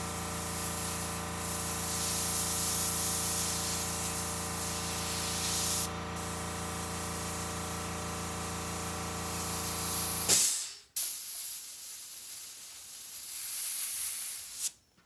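Airbrush hissing as it sprays paint, over the steady hum of an air compressor. The compressor shuts off suddenly about ten seconds in, and the airbrush hiss carries on alone until it stops near the end.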